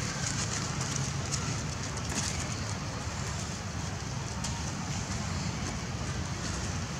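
Steady outdoor background noise: a low rumble under a hiss, with scattered faint crackles.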